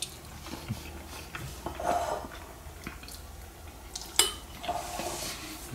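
A utensil clicking and scraping against a bowl as noodles are taken up, with soft chewing noises between; the sharpest clink comes about four seconds in.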